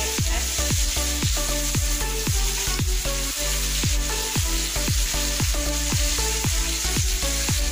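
Rohu fish steaks sizzling as they fry in hot oil in a pan, with a spatula turning them. Background electronic music with a steady thudding beat plays over it and is the loudest sound.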